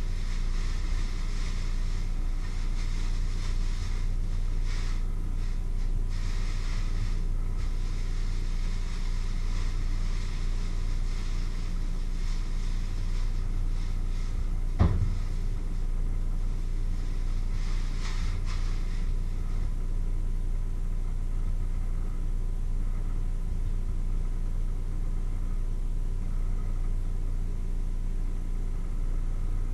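Steady low electrical hum throughout, with plastic-bag rustling as plums are tipped into a metal colander during the first several seconds and again briefly later. A single sharp knock about halfway through.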